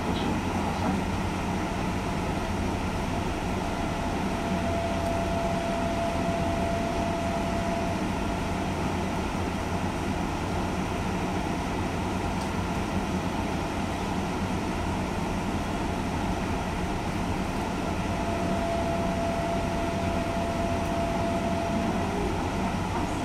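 JR West 201 series electric train standing at a station with a steady hum from its onboard equipment, while it waits to depart. A faint steady whine comes in twice.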